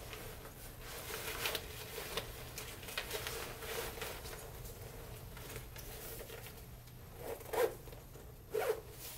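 Zipper on a round Promaster ReflectaDisc carrying case being drawn around the rim to close it, in a series of short rasps with two louder ones near the end.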